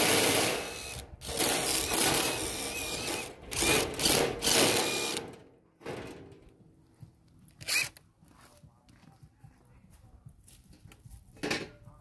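A power tool run in short stop-start bursts, then stopping about five seconds in; a couple of single clicks follow.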